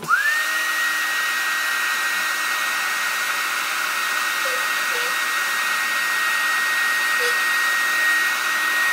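Mini hair dryer switched on and running steadily, a high whine over the rush of air. It is switched off near the end, and its whine falls as the motor winds down.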